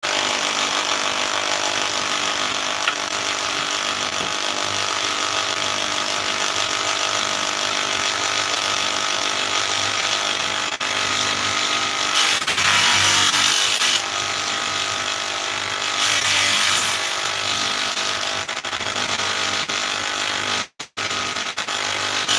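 Stationary woodworking machine, such as a table saw, running steadily with a motor hum, louder for a couple of seconds twice, about twelve and sixteen seconds in, as boards are pushed through it. The sound cuts out briefly near the end.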